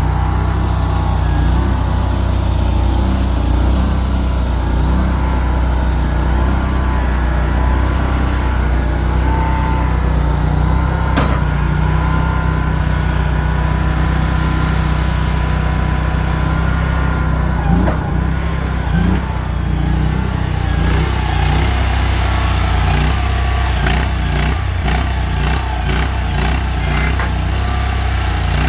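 A small engine running steadily, with a couple of knocks partway through and a rougher, crackling texture in the last third.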